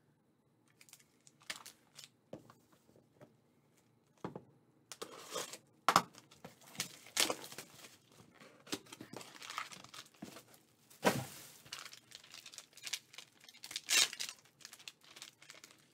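Plastic packaging crinkling and tearing as a black plastic pouch is opened by hand, with many sharp crackles. It starts about four seconds in, after a few faint clicks.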